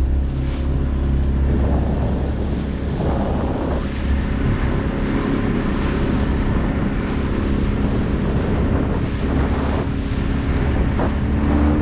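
Mercury 125 hp two-stroke outboard motor running steadily under throttle, pushing an aluminum bass boat across the water, with wind buffeting the microphone and water rushing along the hull.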